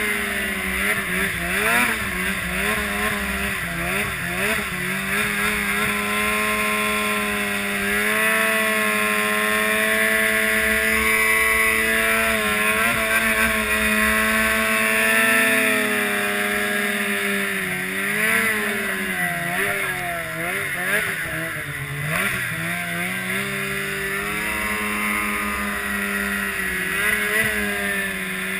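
Snowmobile engine running under changing throttle while riding on snow, its pitch rising and falling again and again, with a steady rush of track and snow noise beneath it.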